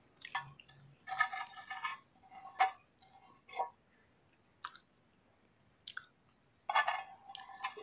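Someone eating: chewing, with irregular short clicks and scrapes of a utensil against dishware.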